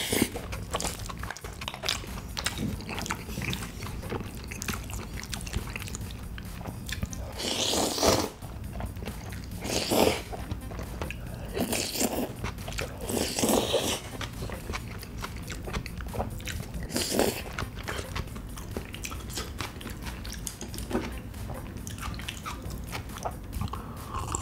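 Close-miked eating: wet chewing and mouth clicks, broken by several louder slurps of spicy-sauced spaghetti and boneless chicken feet.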